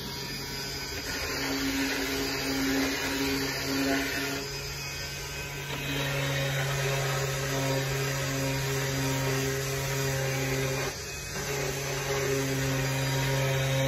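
Handheld power tool running steadily against a length of timber, its motor held at a steady pitch, stopping briefly about eleven seconds in and starting again.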